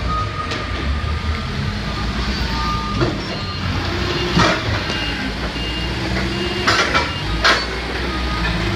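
Forklift engine running, with short repeated warning beeps and a low hydraulic whine that rises and falls as the mast moves. Several sharp clanks come as a pallet is set down on a steel floor-scale platform and the forks slide out.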